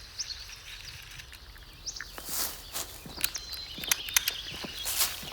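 Footsteps at an irregular pace with a few faint, short bird chirps over quiet rural ambience.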